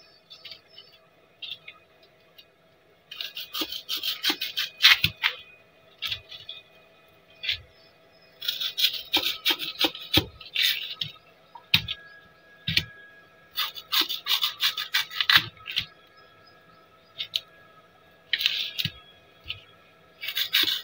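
Kitchen knife cutting a raw yam tuber into minisets on a plastic sheet: bursts of quick sawing and scraping strokes through the firm flesh, with pauses and the odd single click of the blade between bursts.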